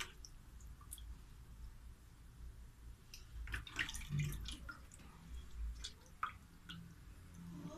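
Faint wet handling sounds of raw rabbit meat being worked by hand in a bowl: scattered small clicks, squelches and drips, busiest around the middle.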